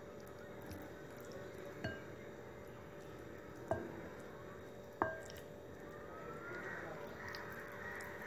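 A hand squishing and mixing thick, wet tandoori masala paste in a bowl. Three sharp clinks against the bowl stand out, about two, three and a half, and five seconds in.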